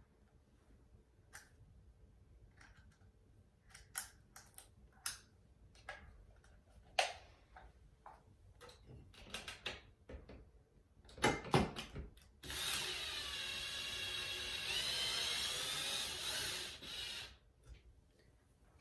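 Porter-Cable 20V cordless drill driving a screw into a ceiling fan's metal base plate: its motor whines steadily for about five seconds in the second half. Before that come scattered light clicks and knocks as the drill and plate are handled.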